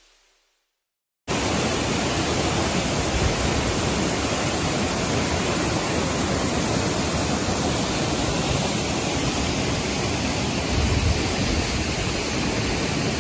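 Steady, even rush of falling water from a waterfall, cutting in suddenly about a second in.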